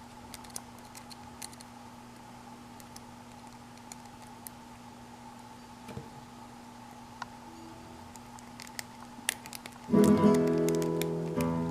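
Faint scattered clicks of bobby-pin picks working inside an ABUS 75/30 dimple padlock's keyway, over a low steady hum. About ten seconds in, acoustic guitar music starts suddenly and much louder.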